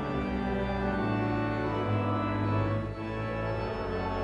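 Church organ playing held chords, changing chord about a second in, with a brief dip in loudness near three seconds.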